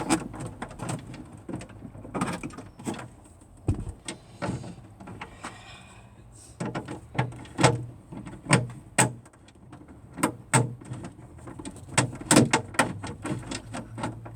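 Irregular clicks, knocks and rattles from working at a lower dashboard panel with a screwdriver, trying to free its fixing screw, over a low steady hum.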